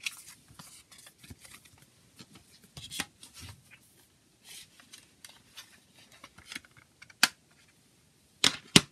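Handling of a CD booklet and a plastic jewel case: scattered paper rustles and light taps, a sharp click about seven seconds in, and two loud clacks near the end as the jewel case is set down on the table.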